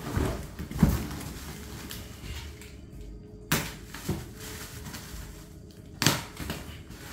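Cardboard shipping box and its plastic-wrapped packing being handled: irregular rustles, scrapes and sharp knocks, about five in all, the loudest about a second in.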